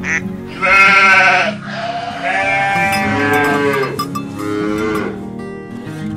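Sheep bleating twice in long, quavering bleats over background music.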